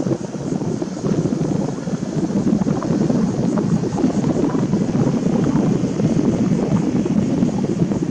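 Wind buffeting the camera's microphone: a loud, uneven rushing noise with no breaks.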